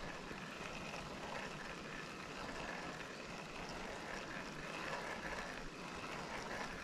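River water running steadily, an even rushing hiss.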